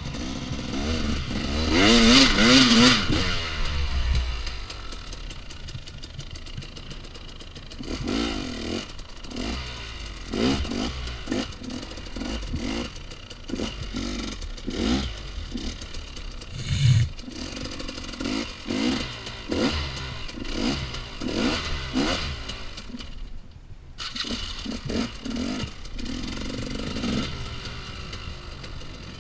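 2014 KTM 250 XC-W two-stroke dirt bike engine revving hard about two seconds in, then running with many short throttle blips as the bike is ridden over dirt.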